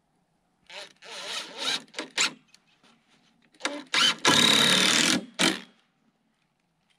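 Cordless impact driver driving screws into treated lumber in two runs: a short stuttering burst about a second in, then a longer, louder run of hammering around four seconds in that stops sharply.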